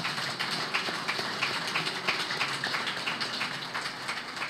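Applause from a group of people, many hands clapping together at once, easing slightly near the end.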